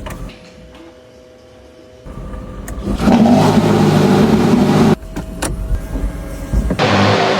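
Porsche 918 Spyder's 4.6-litre V8 engine building up and then running loud under hard acceleration for about two seconds, before cutting off suddenly. It comes back loud again near the end, with a strong rushing hiss.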